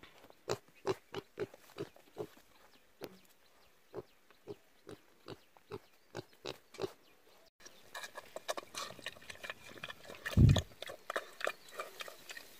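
Black piglet grunting in short, regular grunts, about two a second. About halfway through it is eating from a bowl of feed: rapid smacking, chewing sounds, with one low thump late on.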